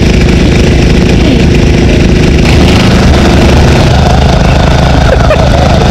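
A small engine idling steadily, with the hiss of water jets spraying.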